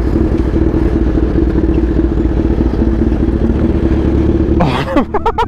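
Sport motorcycle engine running steadily at low revs with a rapid, rough exhaust burble. About five seconds in, a short, sharper sound slides down and then up in pitch.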